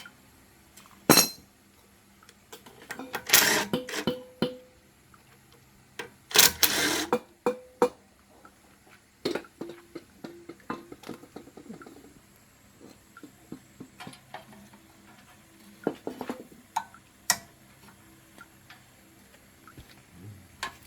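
Metal tools and engine parts clinking and clattering against each other during hands-on work on a diesel engine, in scattered knocks and clinks. There is a sharp knock about a second in and longer clattering rattles a few seconds later.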